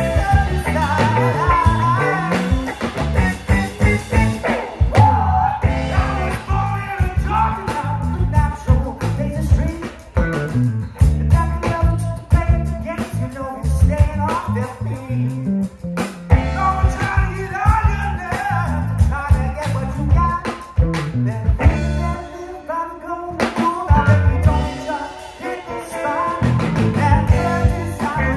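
Live rock band playing through a PA: electric guitars and a drum kit with a singer.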